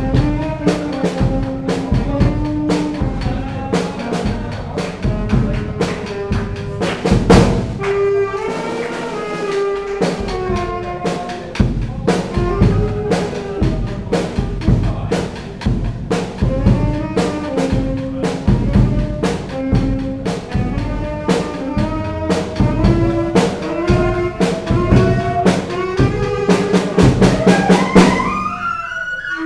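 Charanga band playing live: a saxophone carries the melody over a drum kit keeping a steady beat of bass drum and snare. Near the end a quick rising run lands on a held note.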